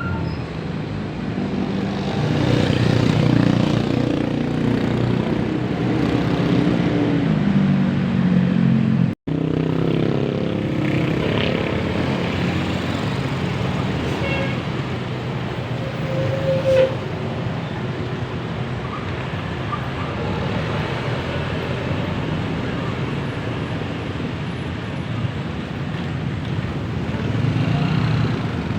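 Passing buses' engines and road traffic noise. An engine note rises over the first few seconds. The sound breaks off abruptly about nine seconds in, then another engine runs with a falling note over steady traffic hum.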